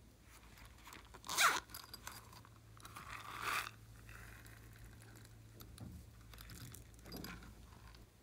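Zippered pencil case being handled and unzipped: a sharp rustle about a second and a half in, then a short rasp of the zipper being drawn open around three seconds in, and a softer rustle near the end.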